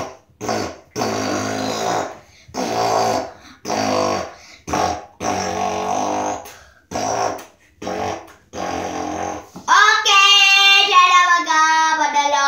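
A child singing in short phrases with brief gaps, then a longer held phrase with the pitch gliding down, starting about ten seconds in.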